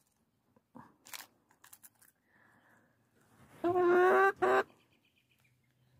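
Hen pecking at mealworms in a plastic bowl with a few faint taps, then giving a loud squawk, one longer note followed by a short one, about two-thirds of the way in.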